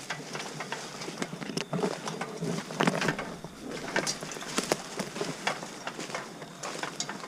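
Irregular light taps and crackles in dry leaves, a few each second, over a faint outdoor hiss.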